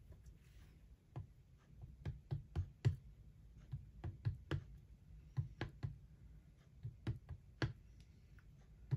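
An ink pad dabbed repeatedly onto clear stamps held in a stamping platform: light, irregular taps, a couple of dozen of them.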